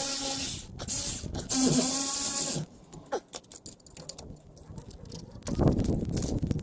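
Brake caliper slider pins scraping and squeaking in two bursts as they are pulled out, then scattered light clicks and, about five and a half seconds in, a run of busy metallic clicking and rattling from handling the caliper and tools.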